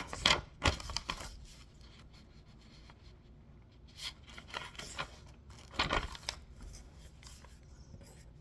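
Handling noises: short bursts of rustling and scraping, in three clusters, near the start, about four seconds in and about six seconds in.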